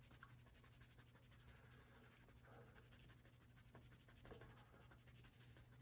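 Faint scratching of a dark green crayon colouring in a background area on paper.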